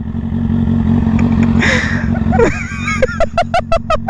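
Motorcycle engines idling steadily. In the last second or so people break into rapid bursts of laughter.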